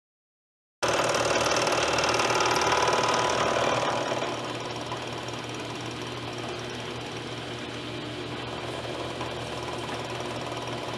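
A machine tool cutting a metal part, a dense steady whine that starts abruptly; about four seconds in the cut lightens and it settles to a quieter steady running hum.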